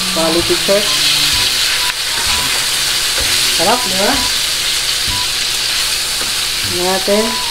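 Beef steak frying in hot oil with onions and garlic in a non-stick pan, a steady sizzle, while a spoon bastes the steak with the pan fat.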